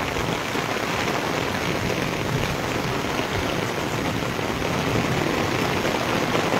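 Heavy rain pouring steadily onto a flat concrete rooftop and the buildings around, a dense even hiss of falling and splashing rain.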